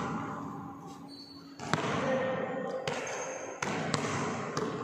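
A basketball bouncing on a wooden gym floor, about five irregular thuds from the second half onward, each echoing in the large hall. A couple of brief high squeaks, typical of sneakers on the court.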